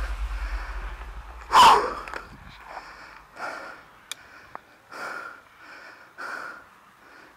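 Background music fading out, then a person's breathing: short puffs of breath about once a second, with one loud rush of breath about a second and a half in.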